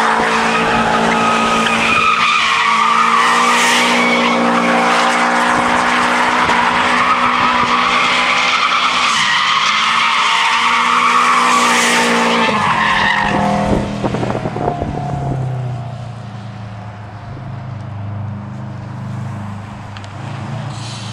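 Subaru Impreza WRX STI's turbocharged flat-four held at high revs while the tyres spin and squeal in a smoky drift. About two-thirds of the way through the revs drop suddenly, and the engine runs low and quieter as the car rolls away.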